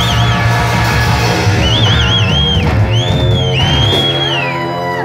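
Live rock band playing loud: a high electric guitar lead with wide vibrato, then bending up and down, over held chords from bass, guitar and drums.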